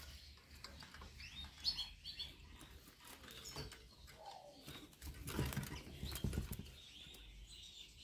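Eurasian siskin fluttering in a wooden wire-domed trap cage, with faint short high chirps. About five seconds in come louder rustles and knocks as the cage is handled and the bird is taken out by hand.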